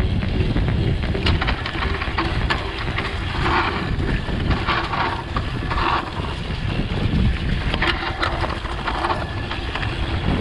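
Mountain bike riding down a trail, heard from a camera on the bike or rider: a steady rumble of wind on the microphone and tyres on the ground, with scattered clicks and rattles and several short surges of hiss through the middle.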